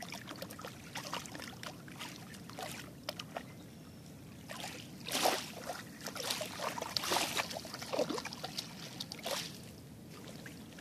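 A basset hound and a poodle wading in shallow river water: irregular splashing and sloshing of their legs through the water, with the louder splashes from about halfway through, over a steady trickle of the flowing river.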